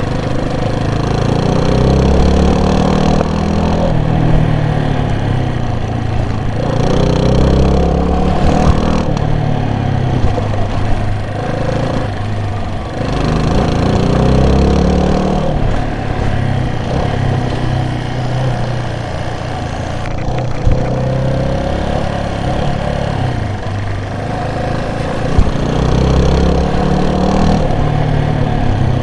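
Vehicle engine running under way, its pitch rising and falling every few seconds as it speeds up and eases off, over steady road and wind noise.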